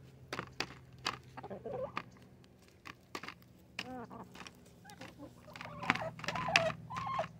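Hens clucking softly while pecking at pie in a foil pie tin, their beaks tapping sharply and often on the food and foil. The calls grow louder a little before the end.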